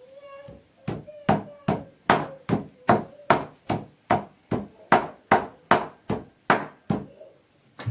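A meat cleaver chops raw meat on a thick wooden chopping block in a steady rhythm of about two to three strikes a second, mincing it. There is a short pause near the end.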